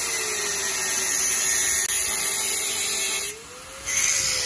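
Handheld angle grinder with a cut-off disc cutting through a steel motorcycle exhaust pipe: a steady motor whine under a harsh hissing grind. A little past three seconds in the grinding stops briefly and the whine rises in pitch, then the cut resumes.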